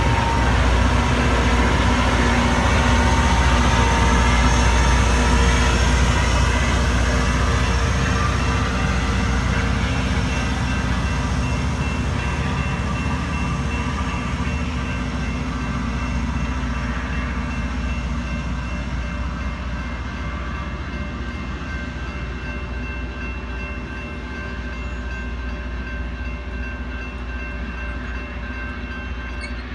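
Loram rail grinder train passing close by, loud at first and fading steadily as it moves away.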